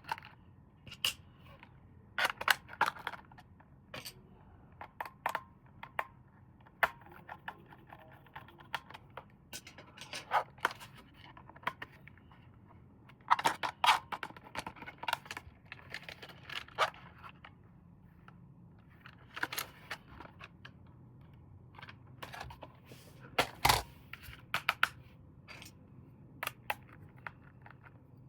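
Hands unpacking and handling plastic toys and packaging: irregular clicks, taps, scrapes and rustles, with one louder knock about three-quarters of the way through.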